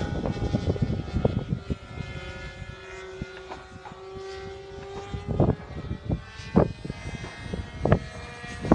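Radio-controlled model airplane engines running steadily in flight, their pitch drifting slightly as the planes pass. A gusty low rumble and a few sharp thumps lie over them.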